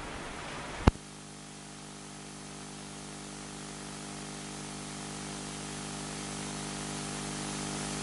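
Steady background hiss, broken by one sharp click about a second in, after which a steady electrical hum of several stacked tones takes over and slowly grows louder.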